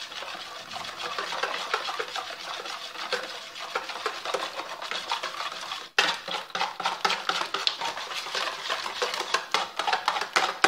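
Wire balloon whisk beating an egg into a runny butter-and-honey mixture in a plastic bowl: fast, steady clicking and scraping of the wires against the bowl. The whisking breaks off briefly about six seconds in, then resumes louder.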